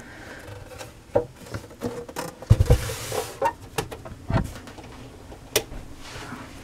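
Handling noise from a tabletop tube radio being turned around and set in place: scraping and a couple of dull thumps on the table, then a sharp click about five and a half seconds in as the on/off volume knob is turned on.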